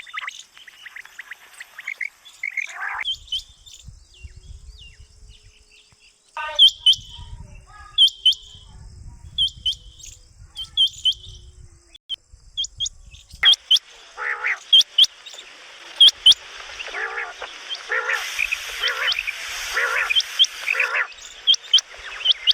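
Quail calling: short, sharp high notes repeated roughly once a second, with a denser chattering of other birds joining in from about halfway through.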